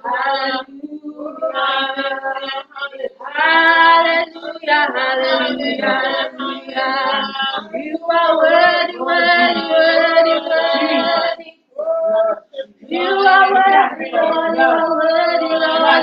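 A small group of voices, mostly women's, singing a praise and worship song phrase by phrase, with brief pauses between lines.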